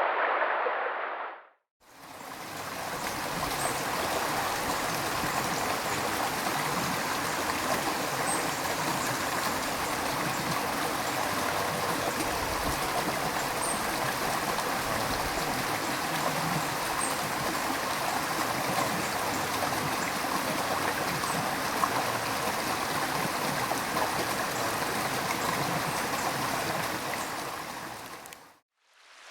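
River water flowing, a steady rushing and gurgling. It fades in about two seconds in and fades out near the end.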